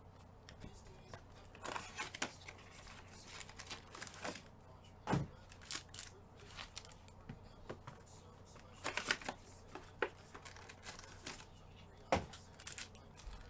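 Foil trading-card pack wrappers being torn and crinkled and cards handled, a run of scattered crackles and clicks, with two louder knocks on the table about five seconds in and near the end.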